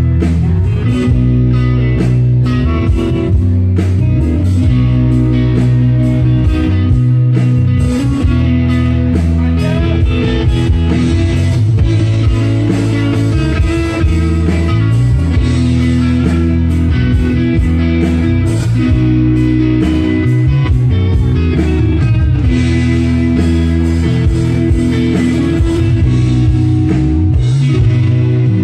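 Live rock band playing: electric guitar leading over bass guitar and drums with a steady beat.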